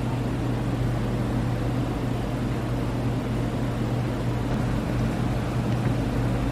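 Steady machine hum with one strong low tone under a noisy wash, unchanging throughout.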